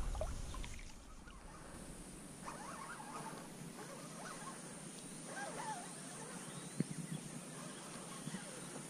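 Quiet river ambience around a kayak: faint water lapping and trickling against the plastic hull, with a few light knocks and some faint chirping now and then.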